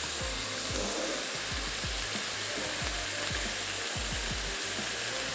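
Steady sizzle of food frying in oil in pans on a gas stove: a spiced gravy with a little added oil, and shredded carrots frying alongside.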